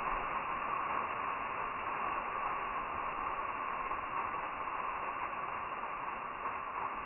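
Steady rushing noise of falling water from a waterfall, dull and muffled, with no high end.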